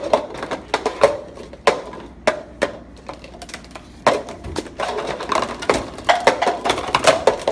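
Cups being stacked up and knocked down on a desktop: a fast, irregular run of hollow clacks and knocks, coming thicker and faster about halfway through.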